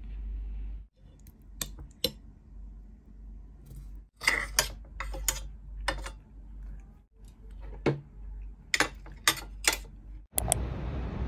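Metal spoon and fork clinking and scraping against a ceramic plate and a glass bowl as a meal is eaten and the dishes are stacked: scattered sharp clinks over a low steady hum, with a louder hiss near the end.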